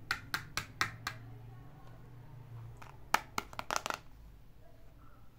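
Small hard-plastic toys clicking and tapping as hands pick them up and handle a pink toy mobile phone: about five sharp clicks in the first second, then a quicker run of clicks about three seconds in.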